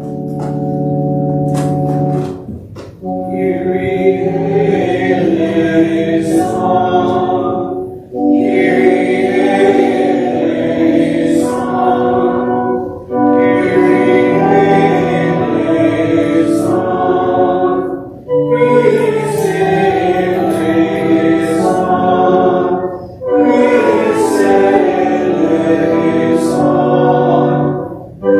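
Church organ sounds a held chord, then a congregation sings a slow service response with the organ, in about five phrases of some five seconds each, with a short breath between them.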